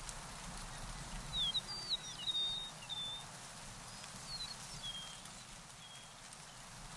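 A small bird singing a quick string of short high chirps and slurred whistles, strongest in the first couple of seconds and thinning out toward the end, over a steady outdoor hiss.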